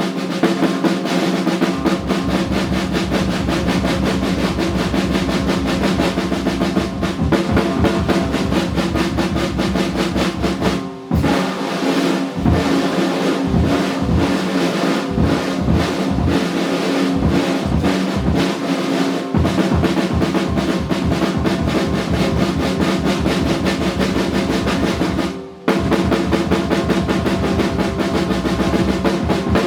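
Live jazz band playing, with the drum kit to the fore in snare-drum rolls and bass-drum hits over held tones from the other instruments. The music breaks off briefly about eleven seconds in and again near the end.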